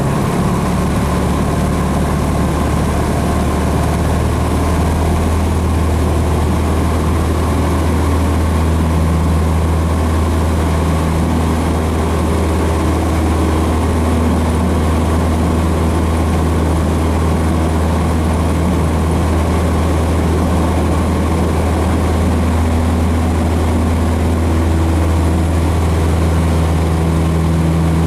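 Cessna 150's Continental O-200 four-cylinder piston engine and propeller running steadily, heard from inside the cabin as the plane taxis, with a strong low hum.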